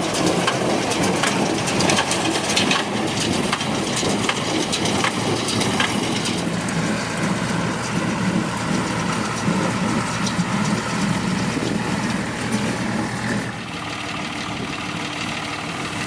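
Farm harvesting machinery working crop: an engine running under a dense crackling and crushing din. It drops somewhat quieter about thirteen and a half seconds in.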